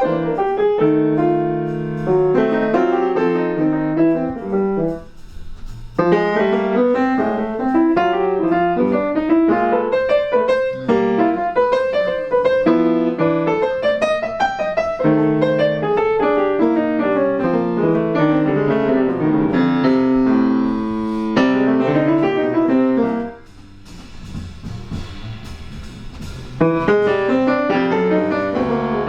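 Jazz piano playing phrases of chords and runs. It breaks off briefly about five seconds in and drops to a quieter passage for a few seconds near the end before picking up again.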